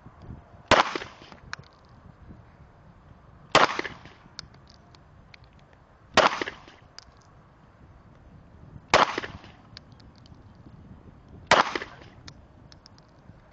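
Glock 17 9 mm pistol fired five times in slow, deliberate fire, one shot every two and a half to three seconds, each sharp crack followed by a short echo.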